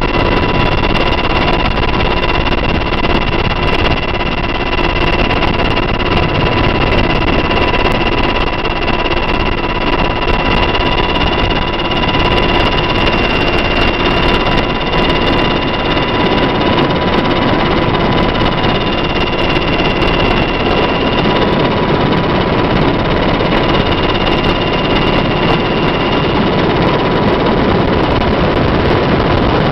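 UH-60 Black Hawk helicopter's turbine engines and rotor running, heard from inside the cabin at an open door: a loud, steady rush with several high turbine whines. The highest whine drops out for a few seconds about twenty seconds in.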